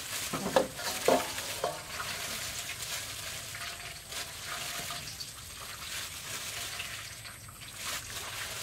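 Watermelon flesh being squeezed and mashed by gloved hands through a wire strainer in a stainless steel bowl: a steady wet squishing, with a few knocks in the first two seconds.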